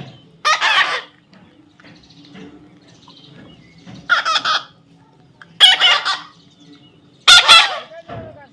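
Young parrot squawking: four loud, harsh screeches, a second or more apart.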